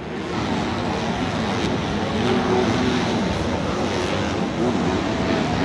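A pack of supercross dirt bikes racing, heard from high in the grandstand: several engines overlap, revving up and down in pitch.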